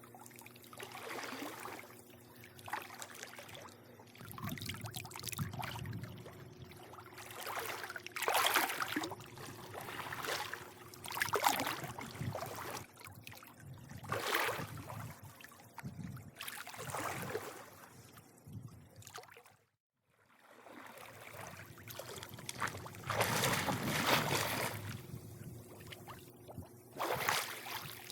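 Swimming-pool water lapping and sloshing in irregular surges every few seconds, over a faint steady hum. The sound cuts out completely for about half a second around twenty seconds in.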